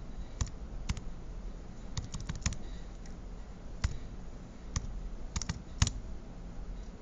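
Plastic keys of a TI-84 Plus C Silver Edition graphing calculator being pressed, about a dozen short sharp clicks at an uneven pace, clustered around two seconds in and again between five and six seconds.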